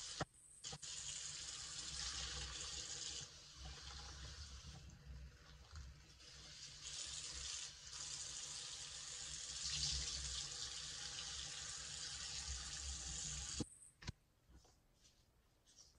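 Bathroom sink tap running steadily onto a soapy sea sponge as it is scrubbed and rinsed around the basin. The water cuts off suddenly near the end, leaving a few faint squishes of the wet sponge being squeezed.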